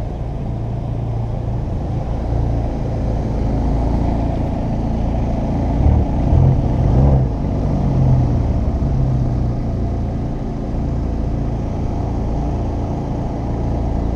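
Car engine running at low speed with a steady low rumble. It swells louder about six to eight seconds in, with brief rises and falls in pitch, then settles back.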